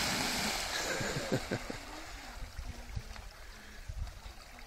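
A dog plunging into lake water after ducks: a big splash and churning water at the start that fades over about two seconds, with the ducks beating up off the water, then quieter splashing as the dog swims.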